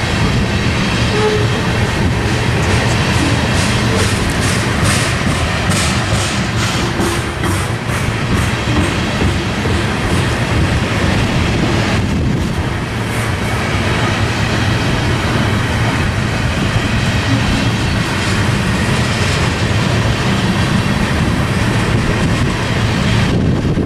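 Freight train of grain hopper cars rolling past, a steady rumble with runs of quick wheel clicks over rail joints, the clicking thickest in the first half.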